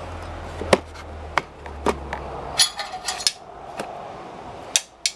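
Scattered sharp clicks and knocks with a brief scraping rustle in the middle, as the exhaust valve servo cable and its end fittings are pulled out through the underside of a motorcycle, tapping against the frame and plastics.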